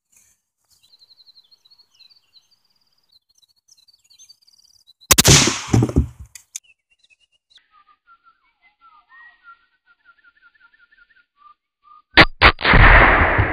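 Birds sing in short repeated phrases. About five seconds in comes a loud .22 rimfire gunshot, a CCI segmented hollow point striking a Kevlar helmet, with a tail of about a second. Just after twelve seconds a second loud report comes: two sharp cracks followed by a noisy tail.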